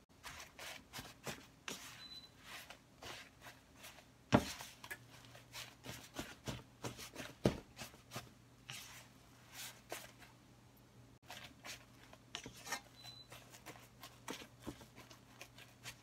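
Silicone spatula stirring and scraping melting marshmallows around a nonstick frying pan in quick, irregular strokes, with two sharper knocks, the louder about four seconds in and another about seven and a half seconds in.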